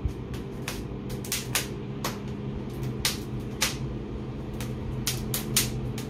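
Wood fire crackling in an open brick fireplace, with irregular sharp cracks a few times a second. Under it runs the steady hum of a centrifugal chimney fan motor.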